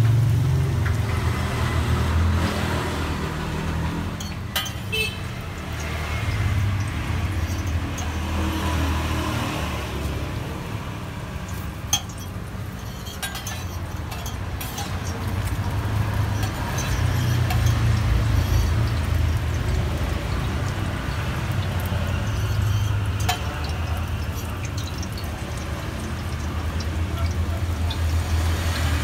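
Metal spatula and fork clinking now and then against a flat steel griddle while a martabak fries, a few sharp clinks in all, over a steady low rumble.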